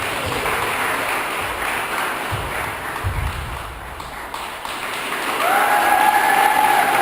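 An audience of children applauding. A steady held tone comes in over it near the end.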